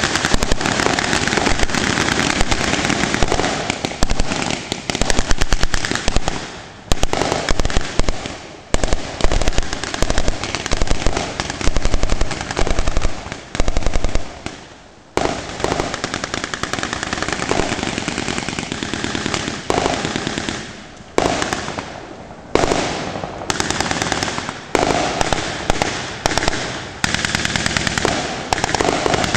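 Reenactment gunfire with blank rounds: machine-gun bursts and rifle shots in rapid, overlapping volleys, broken by a few short lulls.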